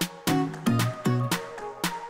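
Upbeat background music with sharp percussive beats about three a second over a pitched bass and melody.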